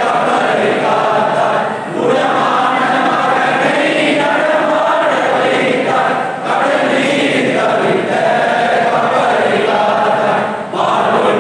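A group of voices singing together in unison, a devotional chant-like hymn sung in phrases with brief breaks between them.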